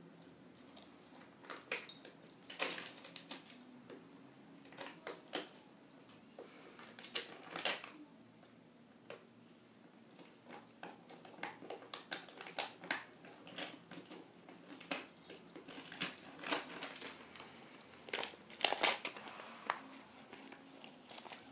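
A dog chewing and tearing at the crinkly wrapper around a treat: irregular bursts of crinkling and crackling with quieter pauses between, loudest near the end.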